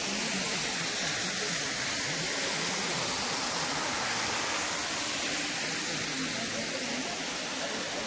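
Waterfall pouring into a rock pool, heard as a steady, even rush of water.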